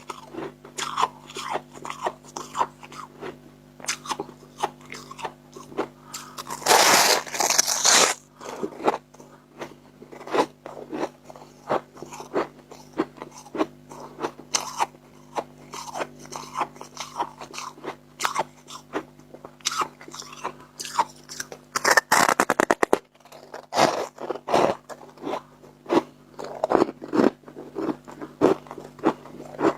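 Someone biting and chewing dry chunks of freezer frost: a steady run of sharp, squeaky crunches. There is a longer, louder burst about seven seconds in and a quick rattle of crunches around 22 seconds in, over a faint steady low hum.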